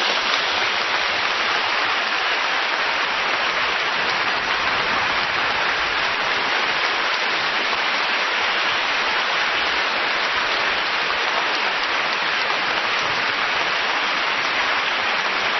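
Audience applauding steadily, without let-up.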